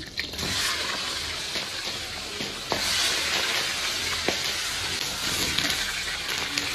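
Scallion, ginger, star anise and Sichuan peppercorns sizzling in hot oil in a wok; the sizzle gets louder about three seconds in as blanched pork trotter pieces go into the pan, with a couple of faint knocks.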